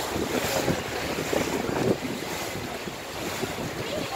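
River cruise boat under way, its water churning and splashing against the hull and the concrete river wall, with wind buffeting the microphone. The wash swells briefly about two seconds in.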